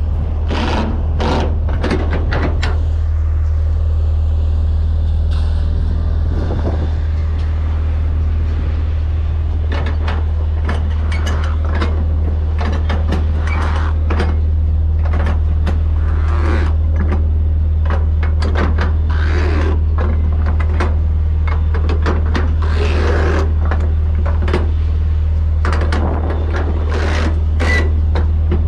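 Flatbed trailer strap winches being tightened with a steel winch bar: irregular clicks, clanks and knocks of the bar and the winch ratchet, over a steady low hum of an idling truck engine.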